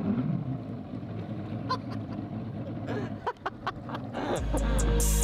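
Motorboat running on the water, a low steady rumble with a few short chirps and clicks in the middle. Music with a heavy bass note comes in about a second before the end.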